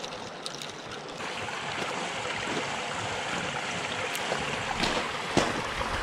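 Water pouring out of a culvert pipe and splashing into a shallow pool, a steady splashing that gets louder a little over a second in, with a few footsteps on gravel near the end.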